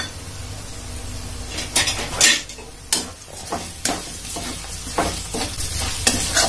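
Green chillies, curry leaves and whole spices (cumin, coriander seed, sesame, fennel) sizzling in hot oil in a metal kadhai, a tempering for chivda. From about two seconds in, a spatula stirs them, scraping and clanking irregularly against the pan.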